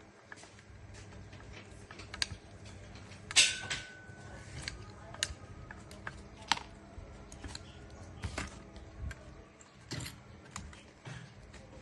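Small clicks and taps of tools and parts being handled on a repair bench, scattered irregularly, with one louder scrape about three and a half seconds in.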